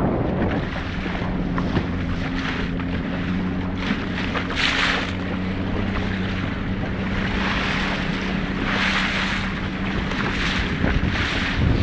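Small boat's engine humming steadily at low speed, with water splashing, louder about five and nine seconds in, and wind buffeting the microphone.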